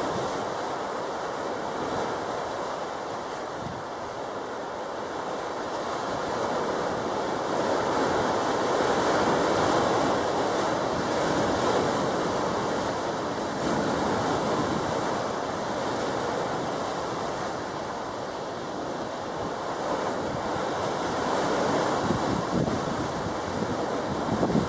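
Sea waves washing, with wind buffeting the microphone: a steady rushing noise that swells and eases over several seconds.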